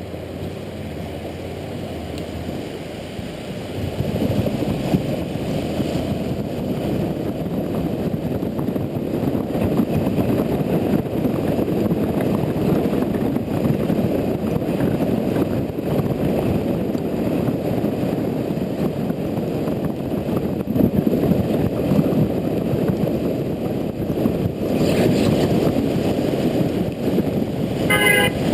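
Honda Integra NC750D motorcycle under way, its parallel-twin engine running under heavy wind and road rush on the camera microphone. The rush swells about four seconds in as the bike picks up speed. A short horn sounds near the end.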